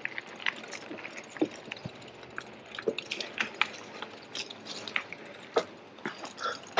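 Specialized Rockhopper mountain bike riding along a dirt trail: scattered, irregular clicks and rattles from the tyres on gravel and the bike jolting over bumps.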